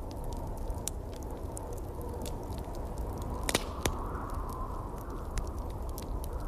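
Wood fire crackling in a fireplace, with scattered small pops and two louder snaps about halfway through, over a steady low rush of wind.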